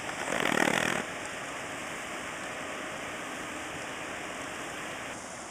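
Steady rush of water from the stream running over rocks below the dam, with a louder burst of noise in about the first second.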